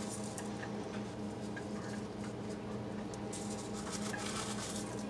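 A steady low hum throughout, with short rustles of hands in disposable plastic gloves handling things. The longest rustle comes a little past the middle.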